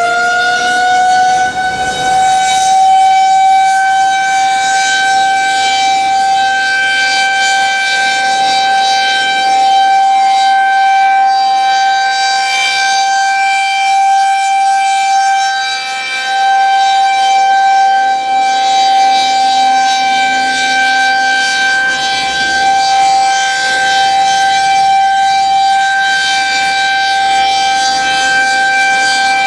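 Federal Signal 2001-SRNB outdoor warning siren sounding at full speed during a routine test: one loud, steady wail held at a single pitch.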